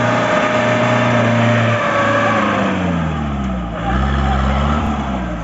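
Off-road jeep's engine running hard under load as it climbs out of a mud pit. The revs hold high, sag for about two seconds, then pick up again near four seconds in.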